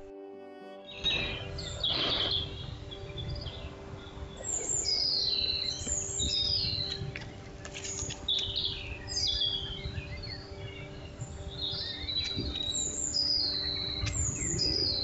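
Woodland birds singing, starting about a second in: many short, high, descending whistled phrases repeated every second or so, over a low rumble picked up by a trail camera's microphone.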